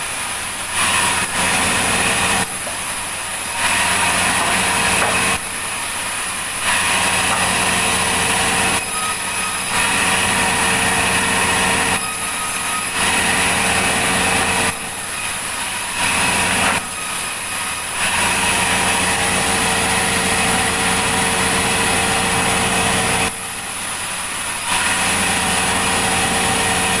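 Log sawmill machinery running steadily: a motor-driven hum and whine, with loud stretches of several seconds broken by short, quieter dips, as the saw works through logs.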